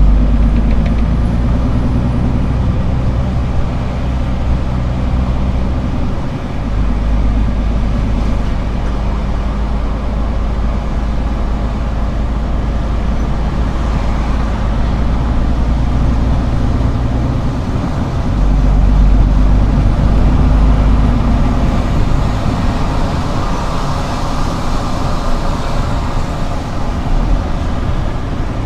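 Heavy diesel engine of a Scania R410 concrete mixer truck running with a steady deep drone. It drops in level about six seconds in and comes back up louder at about eighteen seconds. A rushing noise swells over it in the later part.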